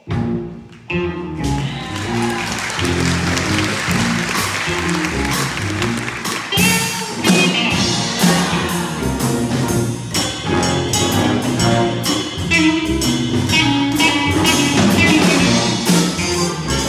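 A jazz big band playing at full volume: saxophones, trumpets and trombones over piano, guitar, double bass and drum kit. The whole band comes in at once at the very start, out of near quiet, and keeps up a loud swinging ensemble passage.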